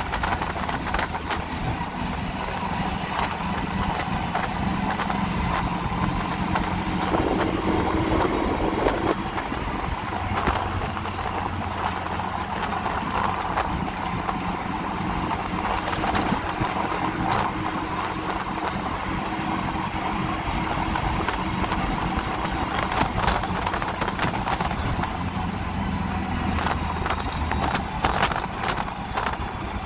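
Auto-rickshaw engine running steadily while under way, with road and wind noise coming through the open side and light rattles.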